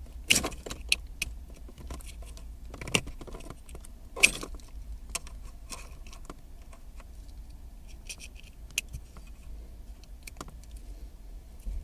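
Plastic wiring-harness connectors and loose wires being handled in a car's dash opening: scattered small clicks and rattles, with the sharpest click about four seconds in.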